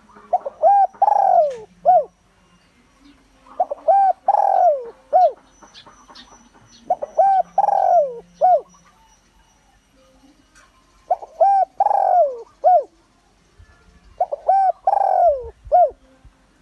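Spotted dove cooing: five phrases about three and a half seconds apart, each a few short coos around one longer coo that falls in pitch. It is the standard call played as a decoy to draw wild doves in to fight.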